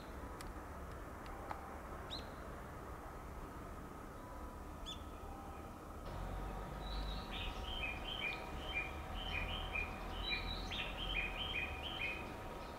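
A small bird chirping, a quick run of short high notes in the second half, over a steady low hum and rumble that grows louder about halfway through.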